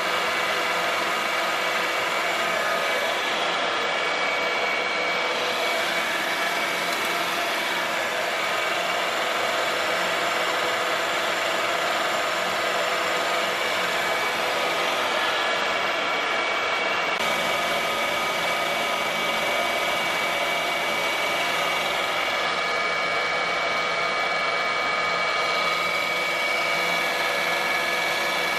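TOS FN 32 universal milling machine running: a steady whine of the motor and spindle gearbox, with several steady tones. A deeper hum joins about halfway through.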